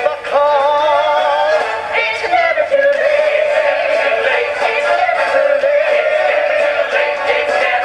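Musical-theatre song: a man singing long held notes with vibrato over a full backing score.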